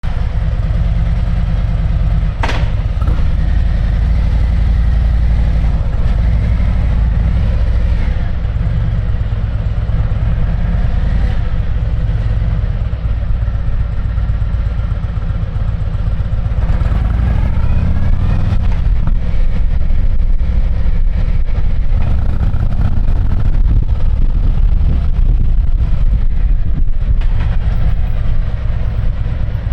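Harley-Davidson Street Glide's V-twin engine running through a Jekill & Hyde valve-controlled exhaust while the bike is ridden, its pitch rising and falling with the throttle. A sharp click comes about two and a half seconds in.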